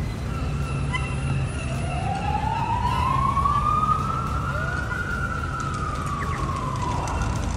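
An emergency vehicle's siren sounding one slow wail: the pitch rises for about three seconds, then falls away. It is heard over the low rumble of city street traffic.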